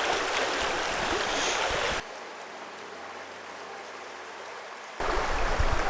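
Mountain stream water running, a steady rushing noise that drops suddenly quieter about two seconds in and jumps back up near the end.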